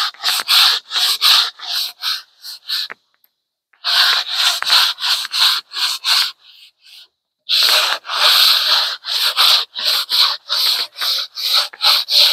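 Sandpaper rubbed by hand over a window box in quick back-and-forth strokes, about three a second. The strokes stop briefly about three seconds in, come back lightly a few times, then resume steadily.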